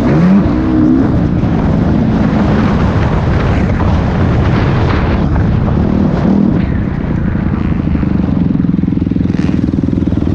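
Dirt bike engine revving, the pitch swooping down and up in the first second, then running at a steady pitch from about seven seconds in.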